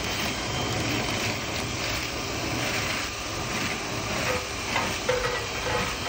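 Drill-driven rotary brush rod spinning and scraping inside a dryer vent duct: a steady rattling noise with scattered clicks, joined about five seconds in by a steady motor whine.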